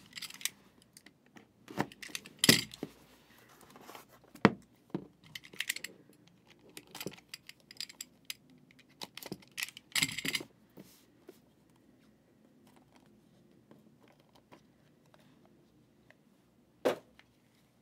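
Cardboard trading-card hobby box being opened and handled by hand: scattered taps, knocks and short scrapes of the lid and inner box, with a longer rustle about ten seconds in and a single knock near the end.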